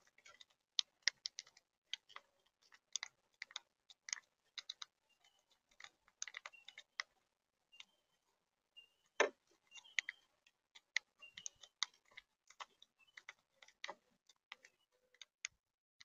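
Monk parakeets pecking and cracking seeds in a seed tray feeder: a faint, irregular run of sharp clicks and taps, with one louder knock about nine seconds in.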